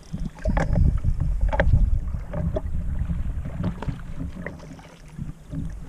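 Strong wind buffeting the microphone, with water slapping and splashing by a small boat and irregular sharp splashes from a hooked black bass thrashing at the surface.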